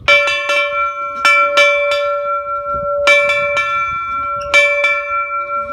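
Railroad locomotive bell on a post, rung by its pull rope: about ten clanging strokes in uneven groups of two or three, its pitched ring hanging on between strokes.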